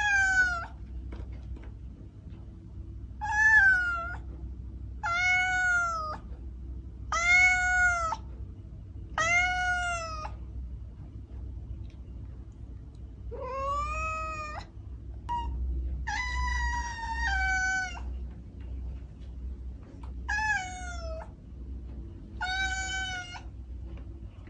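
Kitten meowing again and again: about ten high-pitched meows roughly two seconds apart, each rising and then falling in pitch.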